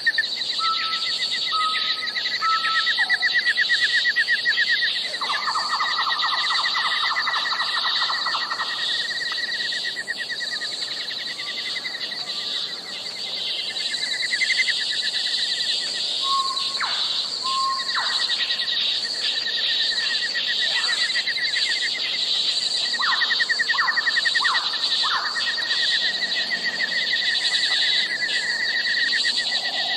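Outdoor chorus of insects: a steady, high, shrill pulsing buzz with a second, lower pulsing buzz under it. Scattered bird chirps and calls sound over it, including a brief trill a few seconds in.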